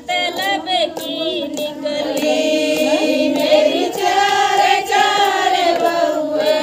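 Women singing a Haryanvi devotional bhajan together, a lead voice with other voices singing along.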